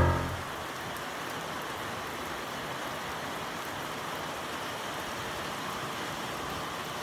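Steady rain falling, an even hiss with fine patter, as the last note of background music dies away in the first half second.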